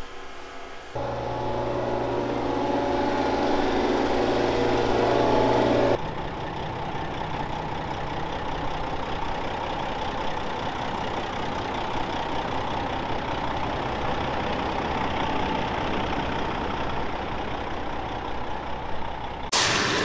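Diesel engine of a milk tanker semi-truck running steadily at idle. About six seconds in, the sound changes abruptly to a more even, steady hum.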